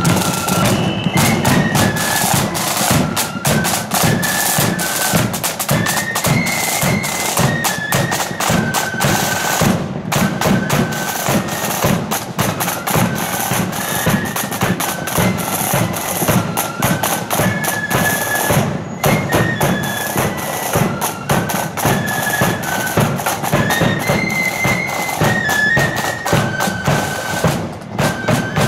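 Marching flute band playing a tune, the flutes in unison, with side drums and a bass drum beating a steady march rhythm.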